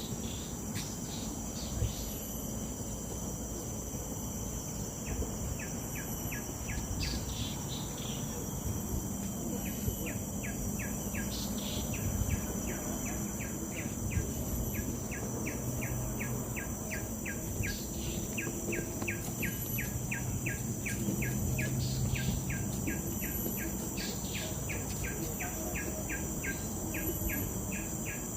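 Tropical forest insects: a steady high-pitched drone with a fast train of short chirps repeating about three to four times a second, and a few bird calls mixed in.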